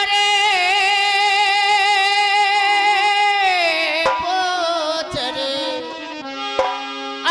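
A singer holding one long, wavering high note in Rajasthani folk style, the pitch sliding down after about three and a half seconds. A few drum strokes and a steady accompanying note follow near the end.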